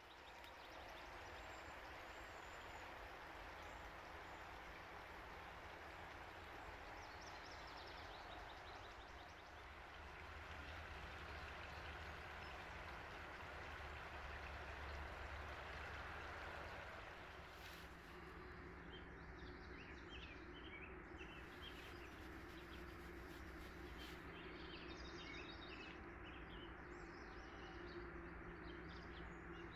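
River water flowing steadily over its bed. Small birds chirp now and then in the second half, over a faint steady low hum.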